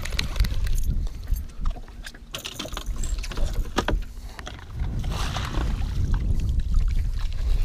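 Low rumble of wind and water around a small aluminum fishing boat, with scattered clicks and knocks from a fishing reel and landing-net handle as a musky is played to the boat and netted.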